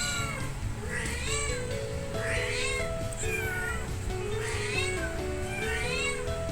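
A young kitten meowing repeatedly, high-pitched calls about once a second, each rising and falling in pitch. Background music with a simple stepped melody plays under it.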